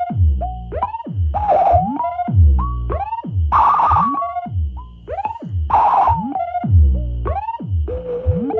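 Ciat Lonbarde Plumbutter analog synthesizer played through a speaker. A looping pattern of upward-gliding tones repeats about once a second over deep bass, with bursts of hiss about every two seconds and a steady high whistle.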